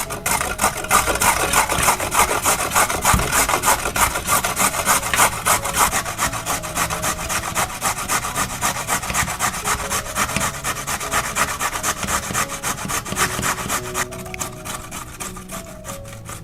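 Food being grated on a grater in quick, rhythmic rasping strokes, stopping about two seconds before the end.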